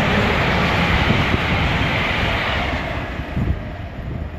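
A Hitachi Intercity Express Train passing at speed: a broad rushing noise, loudest as it goes by, that fades away over about three seconds. Wind buffets the microphone throughout.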